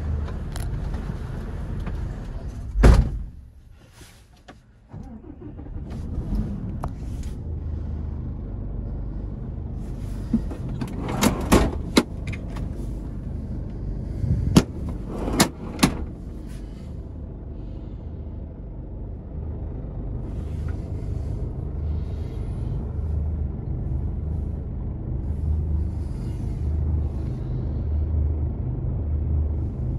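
Mercedes Actros tractor unit's straight-six diesel idling, a steady low rumble heard from inside the cab. A loud thump about three seconds in, and a few sharp clicks and knocks around the middle.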